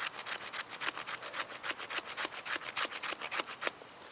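Schrade SCHF27 knife scraping a stick of wood in quick, short strokes, several a second, shaving off fine tinder; the strokes stop shortly before the end.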